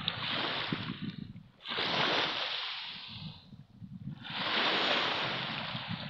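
Small waves breaking and washing up onto a pebble shore, three surges of rushing water about two seconds apart, the second and third the loudest.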